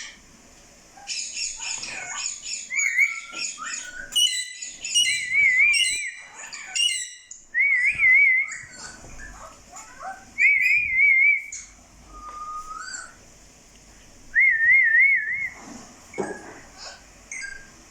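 Parrot whistling and chirping: a run of quick high chirps, then warbling whistles about a second long, several times over.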